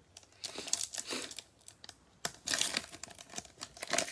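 A foil wrapper of a Panini Mosaic football card pack crinkling and tearing open, in two main bursts of rustling about half a second and two and a half seconds in, with more crinkling near the end.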